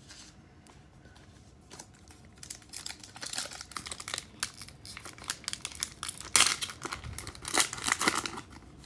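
Foil wrapper of a Panini Revolution basketball card pack being torn open and crinkled. It starts about two seconds in with dense crackling rustles, and the loudest rips and crinkles come near the end.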